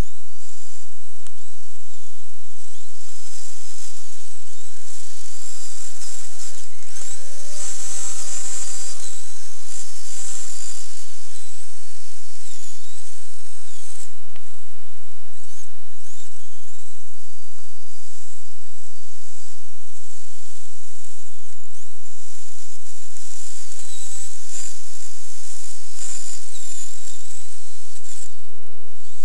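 Small electric motor of a radio-controlled snowcat whining as it drives, its pitch wavering up and down with the throttle, over a steady hiss.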